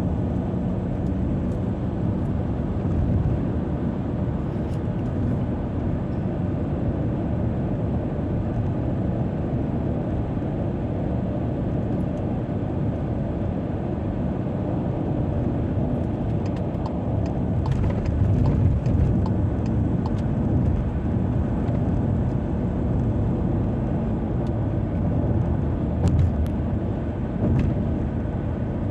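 Car driving at highway speed: a steady low rumble of tyres and engine, with a few faint ticks now and then.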